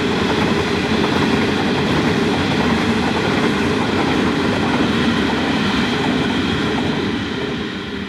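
A string of empty steel coal hopper wagons rolling past on the rails: a steady rumble and rattle of wheels and bodies that starts to fade near the end as the last wagons draw away.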